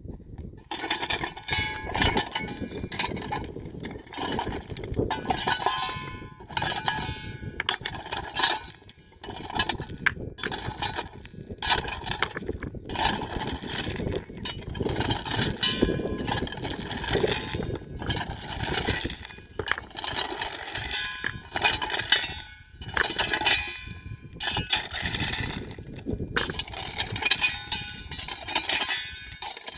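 Many livestock bells clanking and ringing irregularly and without a break, as animals in a herd move about.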